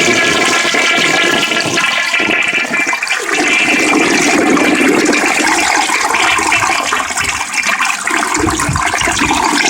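Orion toilet flushing: loud rushing water through the bowl, with a steady whine that stops about two and a half seconds in. The sound is a little distorted by the phone's microphone.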